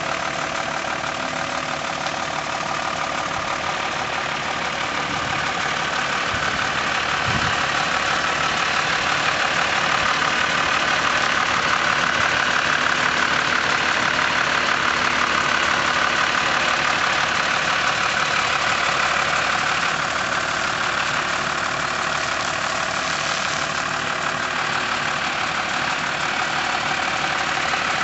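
Diesel engine of an Iveco rigid lorry running steadily at low revs as the lorry manoeuvres slowly, getting louder as it comes close to the microphone in the middle of the stretch.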